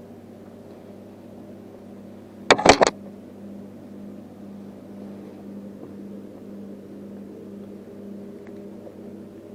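Steady low mechanical hum, like a small motor running. About two and a half seconds in, three or four sharp knocks in quick succession clatter over it.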